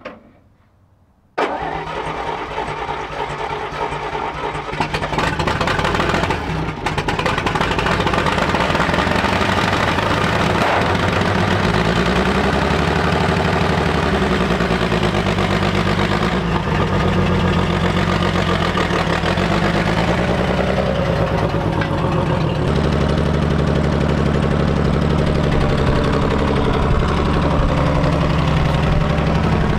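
Engine of a World War 2 Chevrolet truck running under load as the truck drives off. It comes in suddenly about a second and a half in, its pitch rises and falls with the throttle through the middle, and it runs steadier and a little louder near the end.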